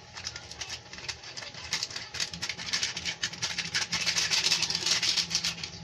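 Crinkling and rustling of a baking powder packet being squeezed and emptied into a bowl of batter, a rapid crackle that grows louder from about halfway through.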